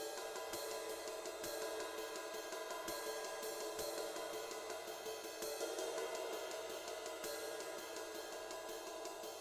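Background music with a steady cymbal and hi-hat beat, faint and thin in the bass.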